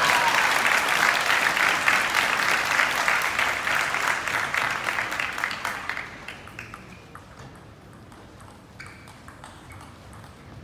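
Spectators in a table tennis arena applauding after a point, then dying away to low hall noise about six seconds in.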